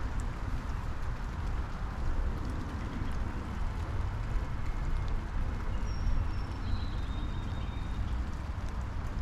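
Steady afternoon rain shower falling on a lilac bush and the yard, with scattered drops tapping. A backyard bird calls faintly a couple of times about two-thirds of the way in.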